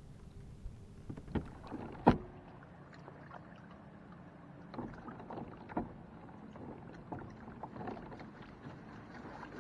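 Scattered knocks and clatter from gear being handled aboard a fishing kayak, with one sharp knock about two seconds in, over a low steady background.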